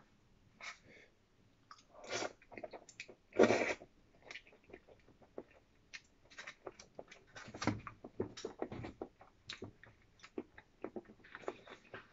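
Close-up eating sounds: chewing and wet mouth noises, with light chopstick clicks against a small plastic container. Two louder mouth noises come about two and three and a half seconds in.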